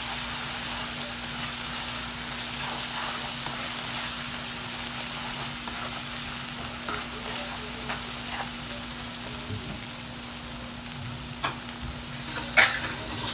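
Onions, green chillies and spice paste sizzling in oil in a frying pan while being stirred with a wooden spatula: the masala being fried down (kosha). The stirring stops toward the end, and a sharp knock comes near the end.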